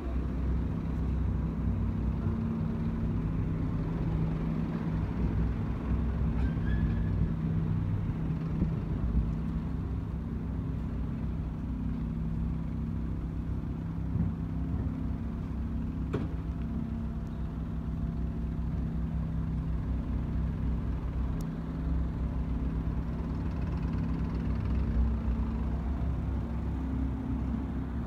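A large engine running steadily at idle, a low, even hum, with one short click about halfway through.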